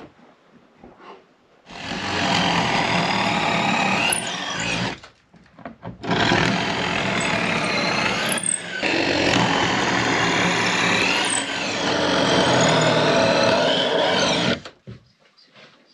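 Handheld power tool at work on copper boat nails and roves, run in two long bursts of about three and about eight seconds with a second's pause between.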